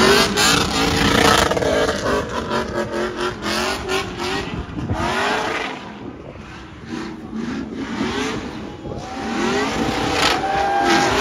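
Drift car's engine revving hard, its pitch sweeping up and down over and over as the car is kept sliding sideways. It drops away for a couple of seconds around the middle and builds again near the end.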